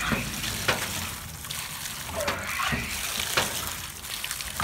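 A stream of water pouring and splashing onto a basketful of plastic toy cars and trucks, with irregular sharp spatters as it hits the toys.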